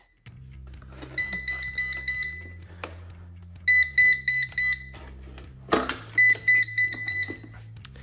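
Ecovacs Deebot N79S robot vacuum giving its error beeping, a group of rapid high beeps about every two and a half seconds, the alert of a robot that has stopped stuck. Background music runs underneath, and a sharp knock sounds about three-quarters of the way through.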